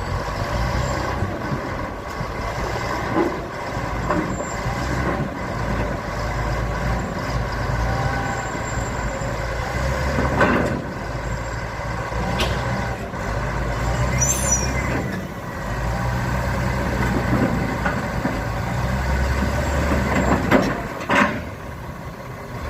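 Caterpillar D7G bulldozer's diesel engine running, its pitch and loudness swelling and easing under changing load, with occasional sharp metal clanks and a brief squeal as the dozer climbs onto a trailer.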